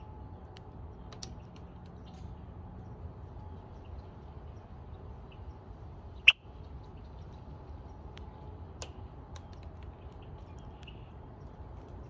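Red-winged blackbird's beak clicking and tapping on peanuts held in a hand, in scattered light ticks, with one much louder sharp snap about six seconds in, over a steady low background rumble.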